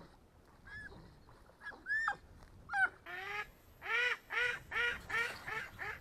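Ducks calling: a few separate calls at first, then from about three seconds in a quick run of loud quacks, roughly two to three a second.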